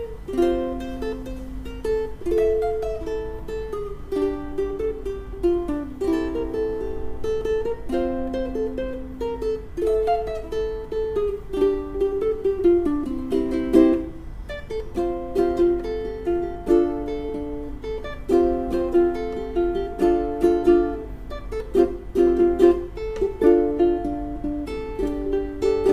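Smiger K-U1 solid koa ukulele with fluorocarbon strings, played as a continuous melody of plucked notes over chords, the notes ringing into one another.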